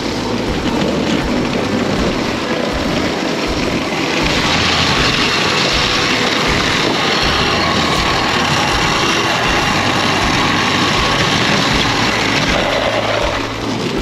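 Dog sled's brake dragging over glare ice and crusted snow under the musher's boot, a steady loud scraping hiss that grows stronger about four seconds in and eases near the end. The brake is being held against huskies pulling hard to go.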